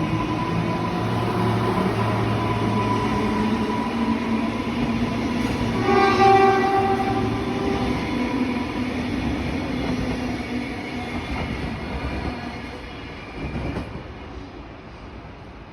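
Queensland Rail electric suburban train running and pulling into a station, with a steady whine. It gives one short horn blast about six seconds in, and the train noise fades over the last few seconds.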